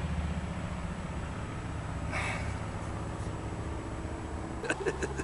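A man's short breath, heard once about two seconds in, over a steady low background rumble, with a few small clicks near the end.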